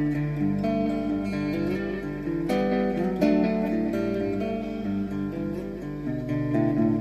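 Guitar music: held chords with picked notes over them.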